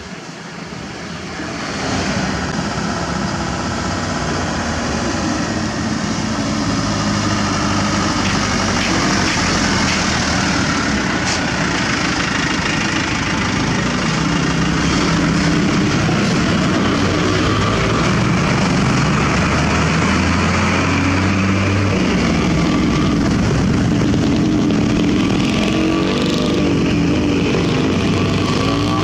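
Dump truck engine running steadily. It grows louder over the first two seconds and then holds a steady level.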